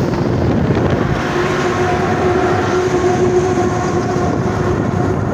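Heavy truck running at highway speed: a dense engine rumble and road noise, with a steady droning tone that comes in about a second in as another loaded truck runs close alongside.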